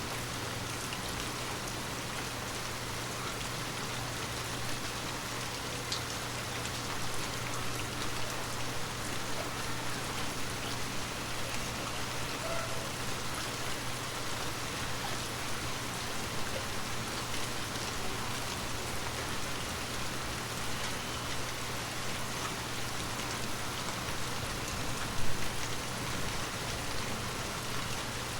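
Water drops pattering steadily on glass, with one louder drop near the end, over a faint steady low hum.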